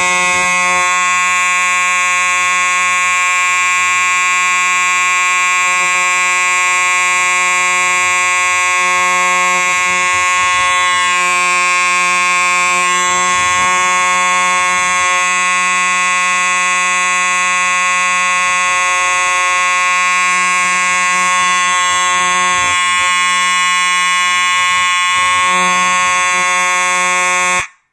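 Simplex 4901-9805 electromechanical fire alarm horn, a coil-driven mechanical horn, sounding continuously. It gives a loud, steady, a little raspy horn tone that cuts off abruptly near the end.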